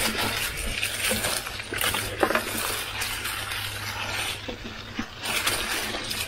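Mountain bike rolling along a trail covered in dry fallen leaves: tyres crunching through the leaves, with light metallic clinking and rattling from the bike.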